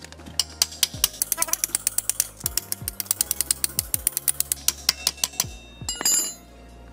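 Ratchet wrench clicking rapidly, about ten sharp metallic clicks a second for some five seconds, as a nut is run on while the front wheel is refitted; a louder rasping burst follows near the end. Faint background music underneath.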